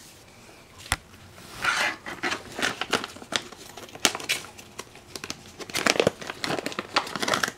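Clear plastic treat bag crinkling as a hand handles it, in a long run of short crackles with a couple of sharp clicks.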